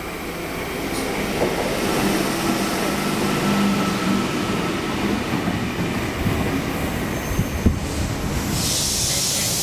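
NSW V-set double-deck electric train arriving along the platform. Its rumble and motor hum grow louder as it comes in, a few sharp wheel clicks come about seven seconds in, and a hiss starts near the end as it draws to a stop.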